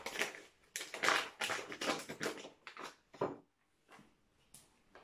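Paper flour bag crinkling and rustling in a quick series of short rustles as flour is shaken out of it to dust a silicone baking mat. The rustling stops about three seconds in, followed by a couple of faint taps.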